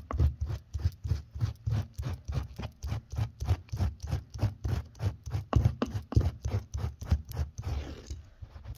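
Stanley knife blade scraped rapidly back and forth over carpet pile, about five strokes a second, loosening dried gloss paint from the fibres. The scraping stops about eight seconds in.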